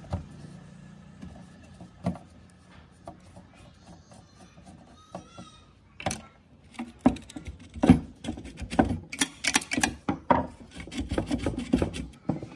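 Screwdriver prying and scraping at the rusted steel gear side plate of an old laminator, with scattered metal clicks and knocks at first, then busier knocking and rattling from about six seconds in as the plate and rollers loosen.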